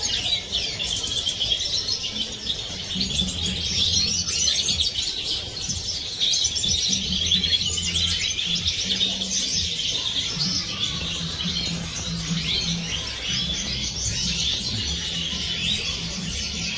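A flock of Siberian goldfinches twittering and chirping without a break, many birds calling over one another in quick high trills.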